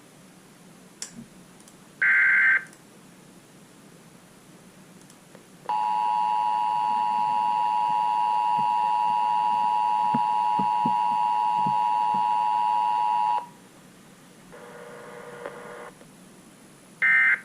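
Emergency Alert System alert tones: a short screech of SAME data burst, then the two-tone EAS attention signal held steady for about eight seconds. A fainter brief tone follows, and another data-burst screech comes near the end.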